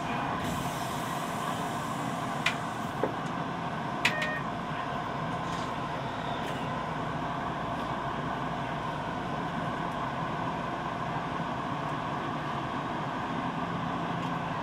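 Tokyo Metro Ginza Line subway train running between stations, heard from inside the car: a steady rumble of wheels and running gear with a low hum. Three short sharp clicks come about two to four seconds in.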